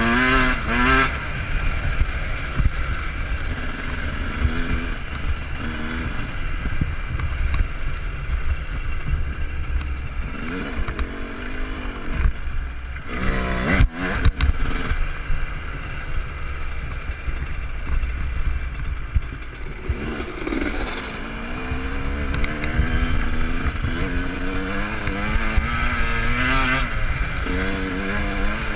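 Yamaha YZ125 two-stroke motocross engine revving up and down again and again as the bike is ridden hard. There is a sharp knock about halfway through.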